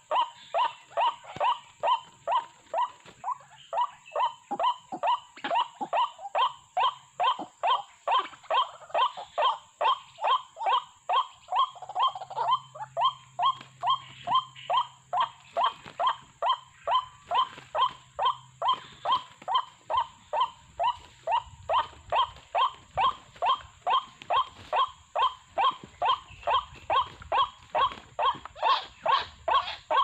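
White-breasted waterhen calls: short, sharp notes repeated without a break at about two a second.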